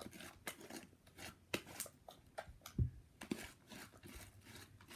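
Fluffy shaving-cream slime being worked by hand, giving faint irregular crackles and little pops from trapped air, with one soft low thump a little past halfway.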